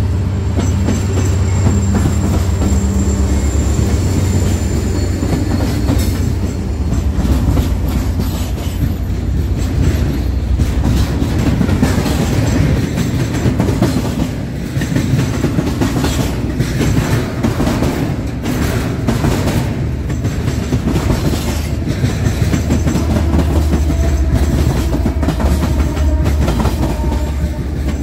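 Freight train passing: the diesel locomotives' engines run with a steady low rumble at first, then the cars' wheels clatter in a run of clicks over the rail joints.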